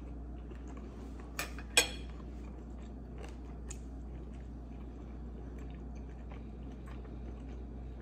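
Steak being chewed with the mouth closed, with two sharp clicks a little under two seconds in, over a steady low hum.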